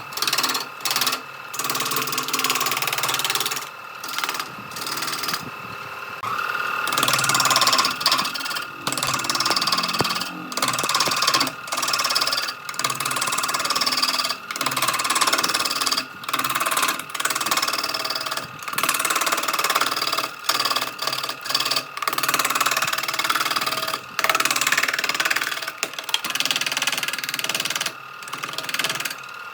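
Electric power tool with a steady motor whine, cutting wood in a run of short passes that break off and resume about every second or two; the motor winds down in pitch as it is switched off near the end.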